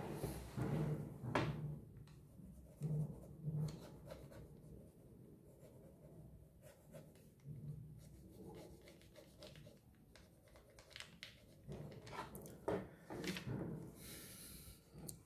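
Pen scratching across sketchbook paper as lines are drawn, with a few soft low knocks in the first few seconds. Near the end comes a quicker run of scratching strokes as a small area is hatched in.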